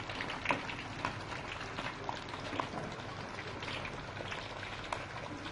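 A whole steamed chicken frying in oil: a steady sizzle with scattered pops and crackles.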